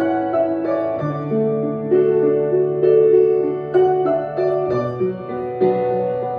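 Solo piano playing a slow, improvised piece: held bass notes under a melody of struck notes. The bass note changes about a second in and again near five seconds.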